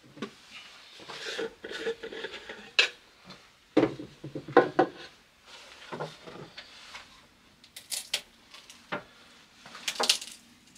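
A metal tin can and the plastic parts of a cordless paint sprayer being handled on a wooden workbench, as the sprayer's plastic cup is taken off and the can's lid is worked open: an irregular run of clinks, knocks and scrapes, with the sharpest knocks near the middle and near the end.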